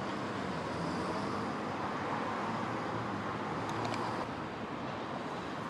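Steady road-traffic noise from a city street, an even rush with no single vehicle standing out, with a few faint clicks about four seconds in.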